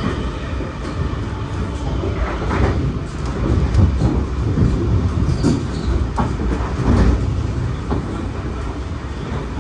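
NSW TrainLink V set intercity carriage running along the track, a steady loud rumble with several sharp clacks of the wheels over rail joints and pointwork.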